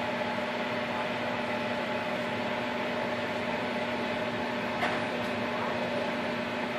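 Steady hum of a running kitchen appliance, holding a few fixed tones, with one soft knock about five seconds in.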